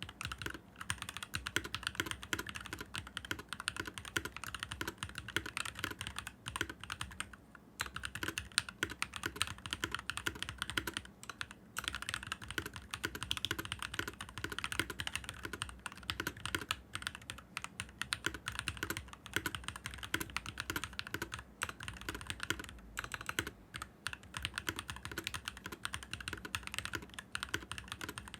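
Fast, continuous typing on a stock NovelKeys NK65 mechanical keyboard: a dense run of key clicks and clacks with a few short pauses.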